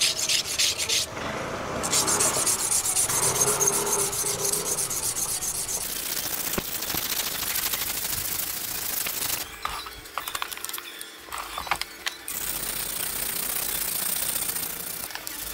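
A yanagiba (single-bevel sashimi knife) blade being rubbed back and forth flat on a whetstone, polishing its back side: steady scraping strokes that pause for a couple of seconds about ten seconds in, with a few light knocks, then start again.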